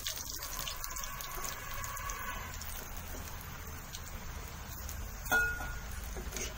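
Raw-banana vadas deep-frying in hot oil on a medium flame, a steady sizzle as they turn golden brown. A single sharp knock a little after five seconds in, the metal slotted spoon against the pan.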